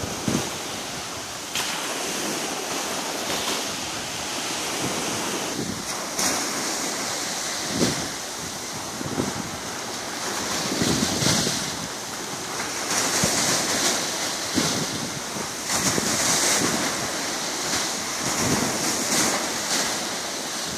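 Small sea waves washing and surging in a steady hiss that swells and eases every few seconds, with wind buffeting the microphone in brief low thumps.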